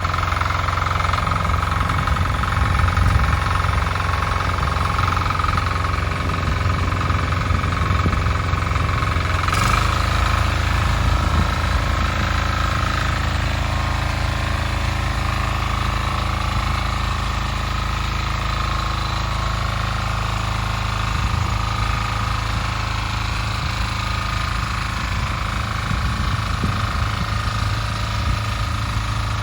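A Weima diesel walk-behind tractor's single-cylinder engine runs steadily while working a rotary tiller. There is a short click about ten seconds in, and the engine note changes slightly after it.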